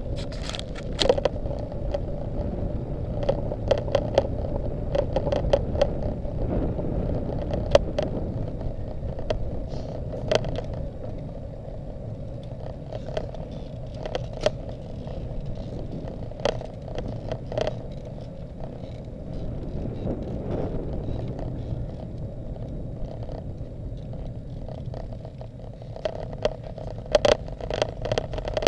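Riding noise picked up by a camera on a road bicycle climbing on tarmac: a low rumble of wind and tyres, a steady hum, and scattered clicks and rattles from the bike and camera mount.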